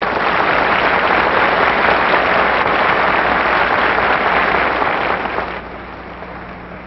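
Studio audience applauding, a dense steady clapping that dies away about five and a half seconds in.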